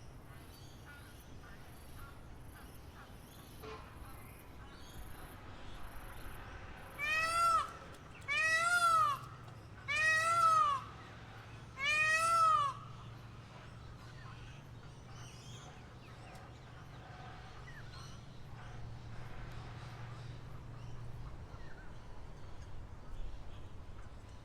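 An animal gives four loud mewing calls, each under a second long and rising then falling in pitch, spaced about a second and a half apart, over faint high bird chirps and a low steady hum.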